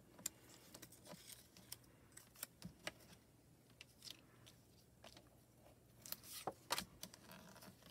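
Faint handling sounds of thin die-cut cardstock pieces and small magnets on a stamping platform: scattered soft clicks and taps, a few sharper ones near the end, over a faint low steady hum.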